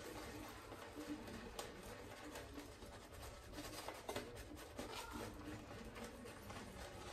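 Shaving brush working lather over the face: faint, irregular scratchy swishing of the bristles through the foam.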